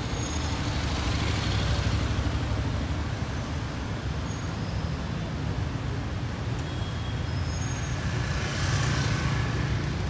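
Cars and a motor scooter driving slowly past one after another, a steady low engine and tyre rumble that swells as vehicles pass close, about a second in and again near the end.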